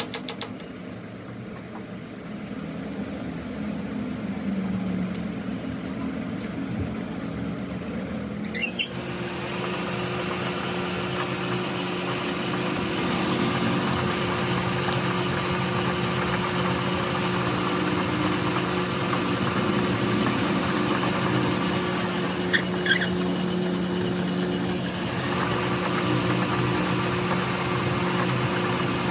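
A machine motor running steadily with a constant hum. About nine seconds in it becomes louder and fuller, with added hiss. A couple of short high squeaks come about two-thirds of the way through.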